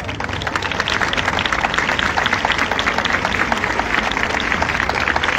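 Crowd applauding at the end of a speech, a dense patter of many hands clapping that swells within the first second and keeps going.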